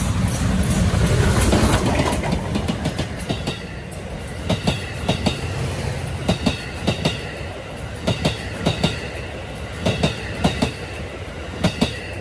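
D51 steam locomotive passing close and loud. Its passenger coaches then roll by with a regular clickety-clack, sharp clacks in pairs as each set of wheels crosses the rail joints, over a faint high squeal of wheels on the curve.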